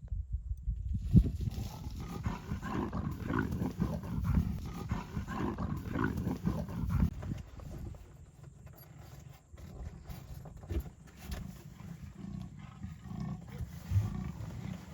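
Leopard growling, a rough, low sound that is loudest and densest in the first half and turns quieter and more broken after about eight seconds.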